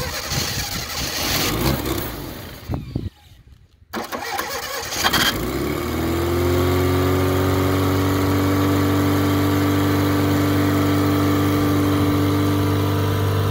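Fiat 127's old 100GL four-cylinder petrol engine cranking briefly about four seconds in, catching, and settling into a steady idle, a cold start after standing 15 plus years, on a carburettor the owners say is bad.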